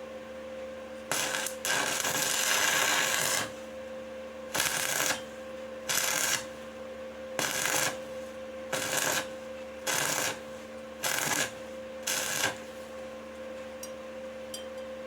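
Stick welding arc crackling in repeated short bursts: one longer run about a second in, then about seven half-second bursts a little over a second apart, as the electrode's arc is struck and broken again and again to avoid burning through the pipe.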